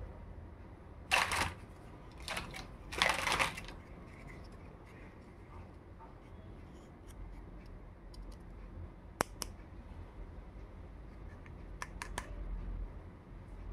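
Small plastic doll-furniture toys handled by hand: three short scraping rustles in the first few seconds, then a few sharp light clicks of plastic tapping, twice, later on.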